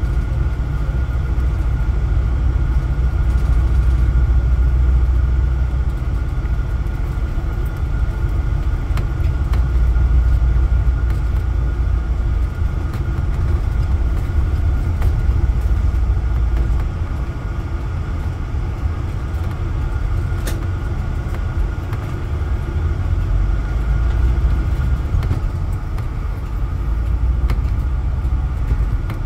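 Cabin noise of a 2016 MCI D4500CT motor coach under way, running on its Cummins Westport ISX12-G natural-gas engine: a continuous low rumble of engine and road that swells and eases, with a steady whine above it.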